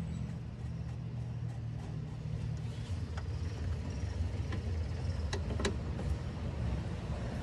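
Ford Escape engine idling with a steady low hum as a rev settles back down. A few sharp metallic clicks sound about three seconds in and again around five and a half seconds.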